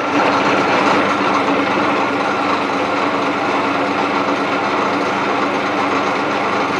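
Archdale milling machine running its spindle at a low speed of 235 rpm: a steady mechanical hum with a higher whine over it from the motor and spindle gearbox. This is the first run on freshly fitted taper roller spindle bearings, and it turns freely without binding.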